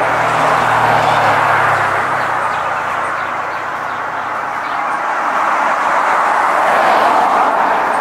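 Vehicles passing on a nearby road: tyre and engine noise swells and fades twice, loudest about a second in and again near the end, with a low engine hum during the first pass.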